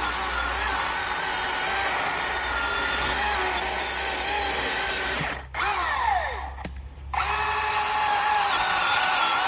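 Milwaukee M18 Fuel battery chainsaw with a Husqvarna X-Cut chain on its high setting, cutting a log with a steady electric whine that wavers under load. About five and a half seconds in the motor cuts out and its pitch falls away; near seven seconds it starts again and keeps cutting.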